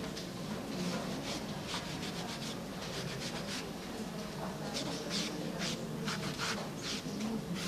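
A small sponge rubbing and dabbing over a carved, painted wooden box: short rubbing strokes, a few a second, heaviest a little past the middle. It is applying a thin oxidation finish over the copper and acrylic paint.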